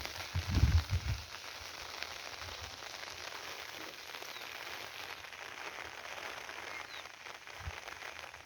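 Steady rain falling, an even hiss, with a few low thumps on the microphone in the first second.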